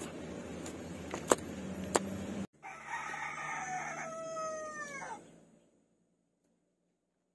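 Rooster crowing once, a long call that drops in pitch at its end. Before it, a few sharp knocks over steady background noise, cut off abruptly just before the crow.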